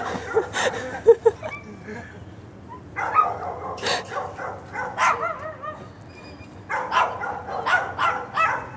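A small tan dog barking in repeated clusters of high yaps, with short pauses between the clusters. It is an aggressive warning bark at a person it has just chased off.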